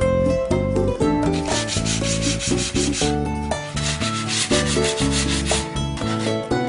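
A small pine block being sanded by hand to soften its sharp edges, in quick, even back-and-forth strokes that pause briefly about three seconds in, then stop near the end. Background music plays underneath.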